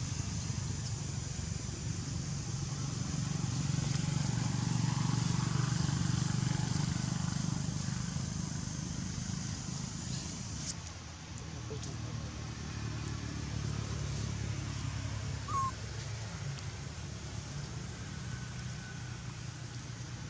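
Low, steady engine hum that swells for a few seconds and then eases, with a single brief high squeak about fifteen seconds in.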